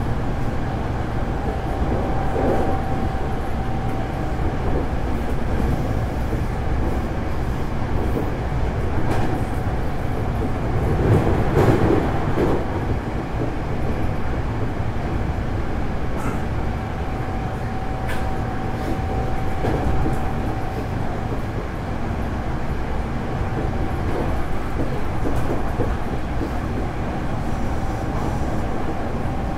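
Hankyu 8300 series electric train, a later Toyo GTO-VVVF car, running between stations, heard from inside the car: a steady rumble of wheels on rail, with a faint steady whine that comes and goes and the car's air conditioning running. The running noise swells briefly about eleven seconds in.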